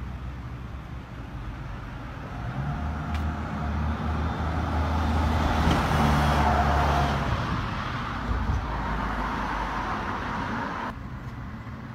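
Road vehicle driving past close by, its engine rumble and tyre noise swelling to a peak about six seconds in and then fading. The sound drops off suddenly near the end.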